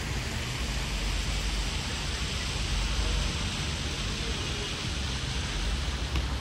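Steady rushing outdoor background noise with a strong, uneven low rumble underneath.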